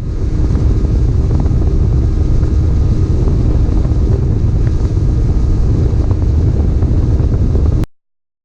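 Steady low rumble of a vehicle under way, with wind on the microphone. It cuts off abruptly near the end.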